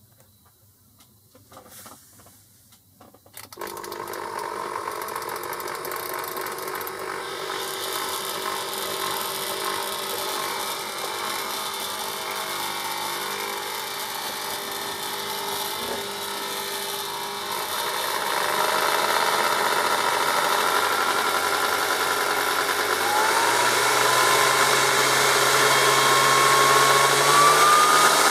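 Hitachi Super Mixer VA-700 blender's motor switching on after a couple of faint clicks, about three and a half seconds in, and running with its glass jar empty. It steps up in speed as the slide speed selector is moved: louder about two-thirds through, then a whine rising in pitch near the end.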